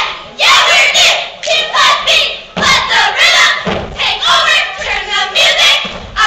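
Cheerleading squad shouting a cheer in unison, a loud rhythmic chant in short clipped phrases, with a few thuds on the mat.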